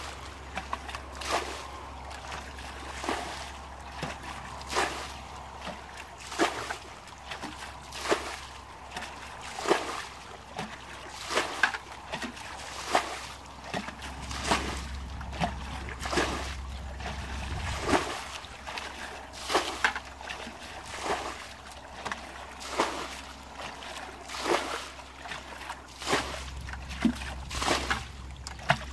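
Water being bailed out of a shallow muddy stream with a plastic bucket: a splash and slosh about every second and a half as each bucketful is scooped up and thrown out onto the bank.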